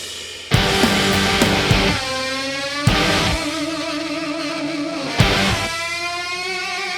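Background rock music led by electric guitar, a new chord or note struck about every two and a half seconds and left to ring, its pitch sliding slightly.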